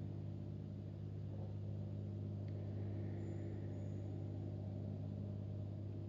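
A steady low drone of a few fixed low tones held unchanged throughout, with no speech.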